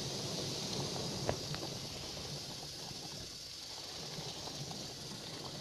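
Faint, steady high hiss of open-air ambience, with a light click a little over a second in.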